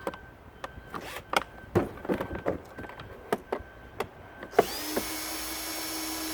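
Scattered clicks and knocks of tools being handled, then about four and a half seconds in a power drill spins up and runs steadily, working at the screws of a shop vac/pressure washer being taken apart.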